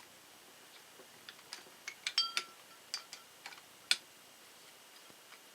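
Metal parts of a power-steering pulley removal tool and the freed pulley clinking together as they are handled: a scattered run of sharp clicks, one of which rings briefly.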